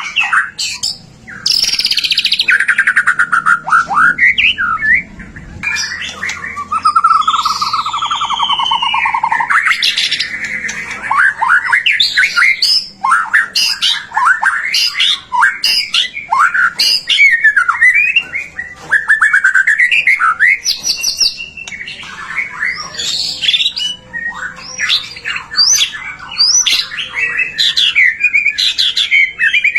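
White-rumped shama singing loud and almost without a break: a fast, varied run of clear whistles, quick trills and rattling phrases, with only a couple of short pauses.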